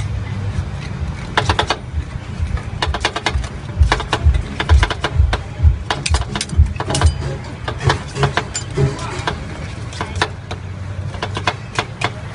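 Metal spatula clicking and scraping against the frozen steel pan of a fried ice cream machine, in quick clusters of sharp taps, over a steady low hum.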